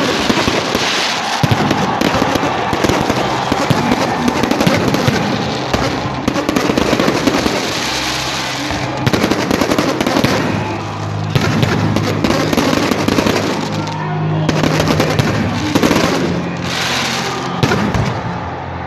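Fireworks going off in a dense, continuous barrage of rapid crackling and popping, with no break.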